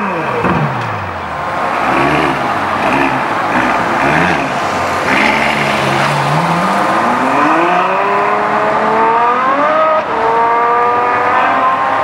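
Ferrari F12berlinetta's V12 engine revving in several short blips, then accelerating hard with its pitch climbing steadily through one gear, dropping at an upshift near the end and rising again.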